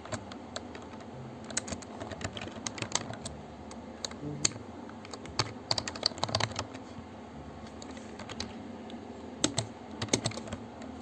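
Computer keyboard typing: irregular runs of keystroke clicks, some in quick clusters, over a steady low hum.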